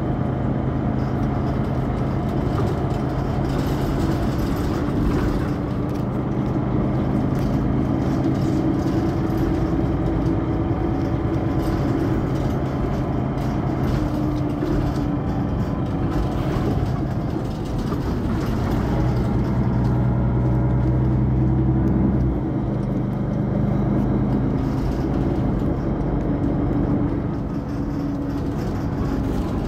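Mercedes-Benz Citaro facelift city bus engine idling while stationary at a stop: a steady low hum, with a somewhat louder, deeper stretch about twenty seconds in.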